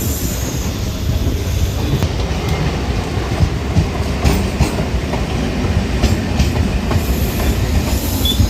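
Suburban local train running along the track: a steady rumble with irregular clicks of the wheels over the rail joints.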